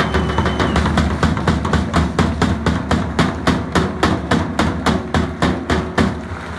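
Music with a fast, even percussive beat, about five strikes a second, over low sustained tones.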